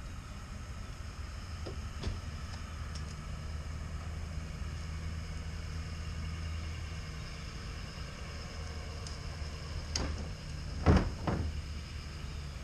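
Ford 6.0L Powerstroke V8 turbo-diesel pickup pulling a boat on a trailer, passing at a distance with a low, steady engine hum that fades away. A couple of sharp knocks come near the end, the second the loudest.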